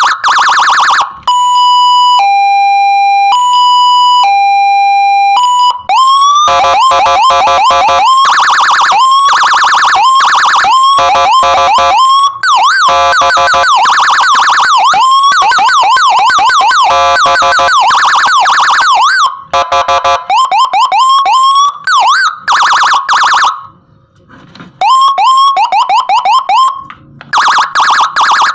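Landun PJR86 electronic siren module driving a TOA ZH610S horn speaker, loud, stepping through its siren tones. It opens with a fast warble, then a two-tone hi-lo that alternates about once a second, then long stretches of rapid rising-and-falling yelps and warbles, with a few short breaks near the end as the tone changes.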